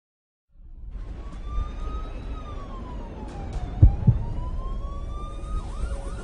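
A wailing, siren-like tone glides slowly up and then down and up again, with a few quick upward chirps near the end. It sits over a low rumble. Two loud thumps come in quick succession a little past halfway.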